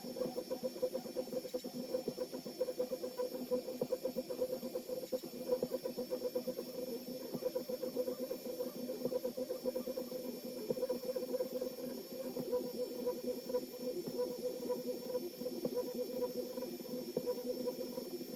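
LABISTS X1 Mini 3D printer's stepper motors running as it prints, a steady, quick, uneven stutter of short pulses.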